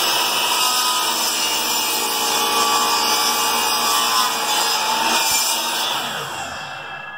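Electric miter saw running and cutting through a piece of wood, then winding down as the motor is released about six seconds in.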